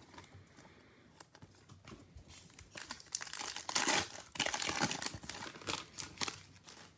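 Foil trading-card pack being torn open and crinkled by hand, then the cards handled. The irregular crackling rustle is sparse at first and busiest from about three seconds in until just before the end.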